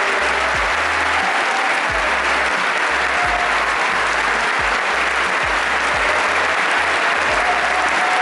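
A large concert-hall audience applauding steadily in an ovation for the orchestra.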